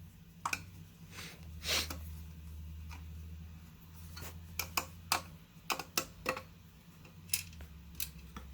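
Irregular light clicks and taps, with a short scrape about two seconds in, as a crooked screw is backed out of a desktop PC case with a screwdriver, over a low steady hum.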